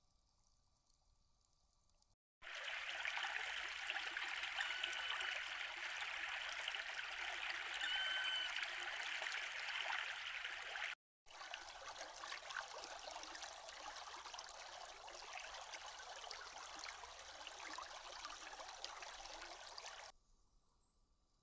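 Small forest creek flowing and trickling over stones, in two stretches that begin and end abruptly: one starts a couple of seconds in, a brief gap near the middle, and the second stops shortly before the end.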